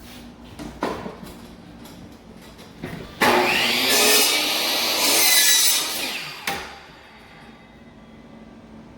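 A saw cutting through a vinyl flooring plank, starting suddenly about three seconds in and running steadily for about three seconds, with a few short knocks before it.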